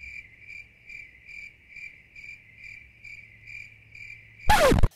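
Cricket-chirp sound effect: an even, high chirp repeating about two and a half times a second. Near the end a loud, short whoosh falling in pitch cuts across it, a transition sound effect.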